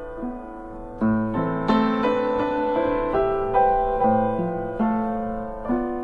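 Solo piano playing the instrumental introduction of a song: notes and chords struck one after another and left to ring out.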